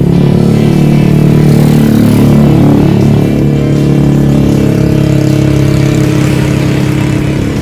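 A motor vehicle's engine running loud and close, swelling for a moment about two seconds in.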